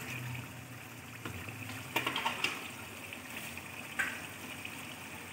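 Chicken pieces sizzling and bubbling in a non-stick karahi, the cooking water nearly boiled off so the chicken is frying. A few clicks of a spatula against the pan come about two seconds in, and one more at about four seconds.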